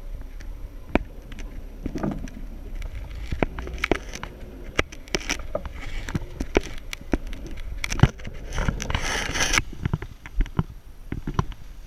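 4x4 off-roader crawling through muddy ruts and puddles, its engine a low rumble under frequent irregular knocks and rattles as the vehicle lurches over the rough track. A burst of splashing comes about nine seconds in.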